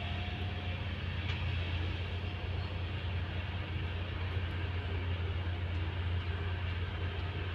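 Diesel engine of heavy earthmoving machinery running steadily, a constant low drone.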